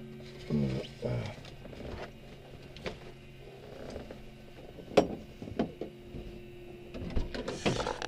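Scattered clicks and knocks in a small plane's cockpit with the engine shut down and the propeller stopped, over a faint steady hum whose lower tones cut off about half a second in.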